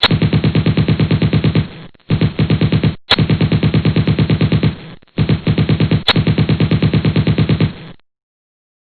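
Machine-gun sound effect: four bursts of rapid automatic fire at about nine shots a second, separated by short gaps, the last burst the longest, each stopping abruptly.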